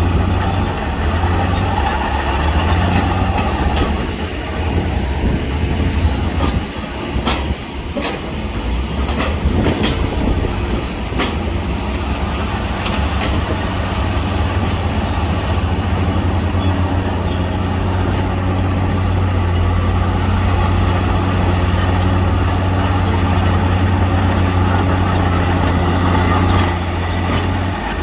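Heavy diesel engine of an earthmoving machine running steadily under load, with a few sharp metallic clanks about a quarter to a third of the way in.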